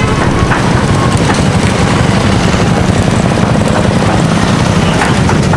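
Busy street ambience dominated by a steady low engine rumble from vehicles nearby, with faint snatches of voices.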